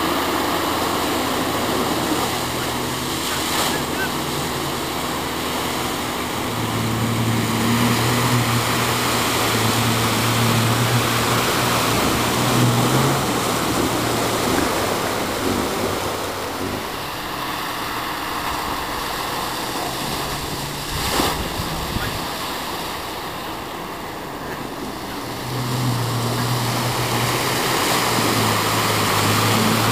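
Off-road 4x4 engine pulling through deep muddy water, with water splashing and surging against the vehicle. The engine note grows stronger twice: around the middle and again near the end.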